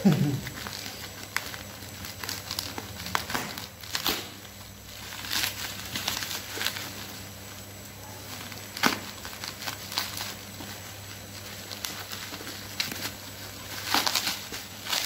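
Plastic bubble-wrap packaging crinkling and rustling in irregular bursts as hands cut and pull it off a box.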